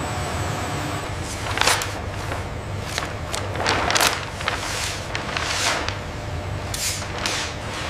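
Steady low hum of factory machinery with a series of short swishes and rustles from a large carbon-fibre sheet being lifted and laid onto a layup table.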